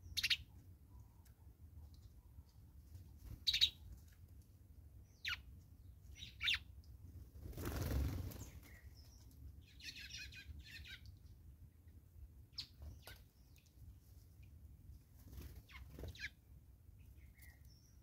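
Wild birds feeding give scattered short, sharp chirps, with a brief scratchy chatter about ten seconds in. About eight seconds in comes the loudest sound, a whoosh of wingbeats.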